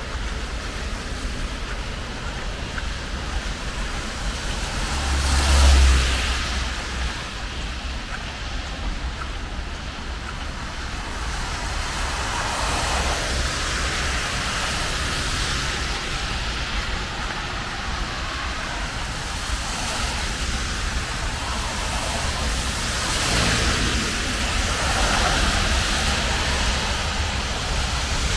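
Road traffic on a rain-soaked road: cars passing with tyres hissing on wet asphalt over a steady hiss of rain. One vehicle passes loudly with a low rumble about six seconds in, and more pass in the last few seconds.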